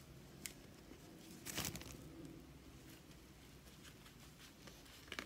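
Faint handling noises from unpacking a ball-jointed doll: a click about half a second in, a short rustle of packaging around a second and a half in, and light clicks near the end.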